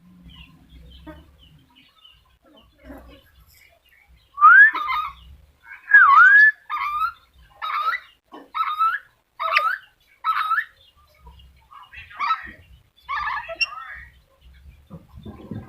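Black-capped lory calling: a run of about ten short, harsh calls starting about four seconds in, some with a squealing pitch that rises or dips and rises again. The first couple of calls are the loudest.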